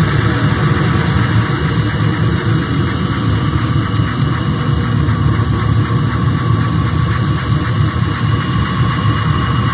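Dense, steady electronic noise with a heavy low rumble and no breaks, from a live set played on mixers and electronic gear.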